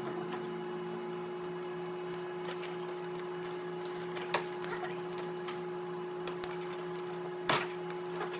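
Steady low machine hum, with small plastic clicks and rattles as the door panel's wiring connectors are worked at; the sharpest click comes about seven and a half seconds in.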